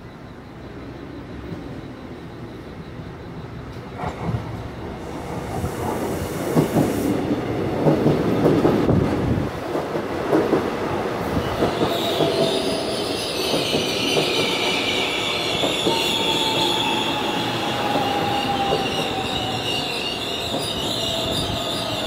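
An electric commuter train pulling into a station. Its wheels clatter and knock over the rail joints and points as it comes in. Then, as it brakes, a high wheel squeal and a slowly falling whine take over while it slows along the platform.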